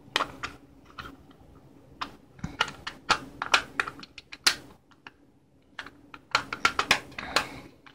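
Irregular sharp plastic clicks and taps from the parts of a computer mouse being handled and fitted back together. They come in three clusters with short pauses between them.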